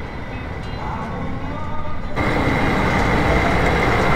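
Gasoline running through a pump nozzle into a car's fuel tank: a steady rushing hiss that steps up louder about two seconds in.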